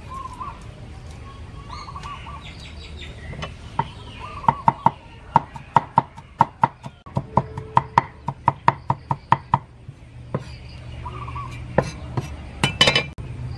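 A steel cleaver chopping garlic cloves on a wooden board: a run of quick, evenly spaced knocks, about four a second, from about four seconds in to near ten seconds, then a short flurry of strikes near the end.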